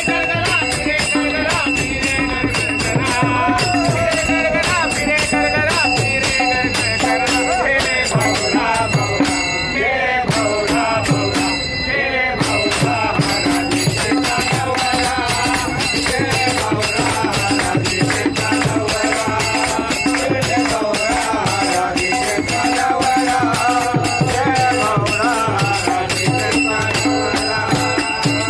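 Men's voices singing a devotional bhajan together, with small brass hand cymbals (taal) struck in a steady rhythm and ringing.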